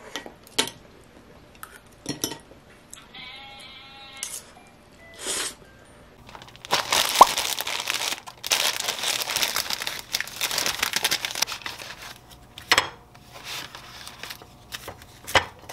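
Plastic packaging of steamed buns crinkling and rustling loudly for several seconds as it is handled and opened, followed by a couple of sharp knocks as the buns are lifted from their plastic tray onto a plate. A few light clicks of cutlery come before it.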